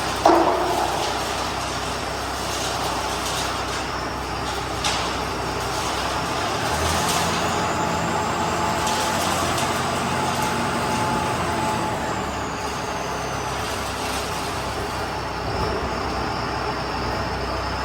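Self-loading concrete mixer's engine running steadily, with a sharp clank at the start and a few lighter knocks.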